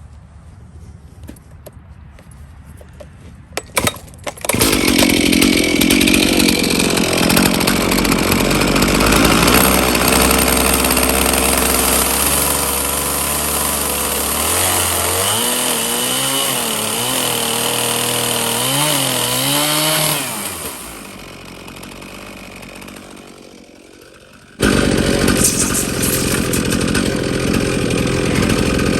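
Chainsaw cutting through 2x6 lumber: after a few clicks about four seconds in it comes in loud at high revs, its pitch wavering under the load of the cut. It drops to a lower idle about twenty seconds in, then comes back loud suddenly near the end.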